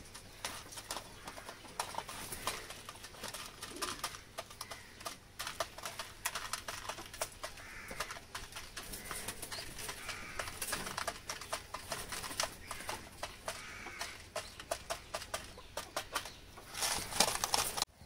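Pigeons pecking grain from a cut plastic bottle feeder: rapid, irregular clicks and taps of beaks on the plastic and the seed, with a few faint bird calls.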